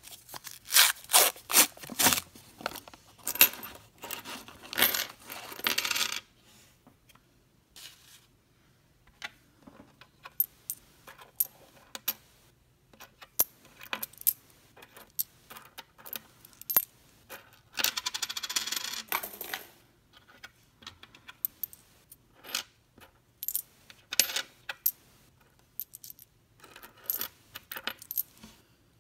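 Pennies (Lincoln cents) clinking on a wooden table as a paper coin roll is emptied: a dense clatter over the first six seconds, another short dense patch a little past the middle, and scattered single clicks in between as the coins are slid along and stacked one by one.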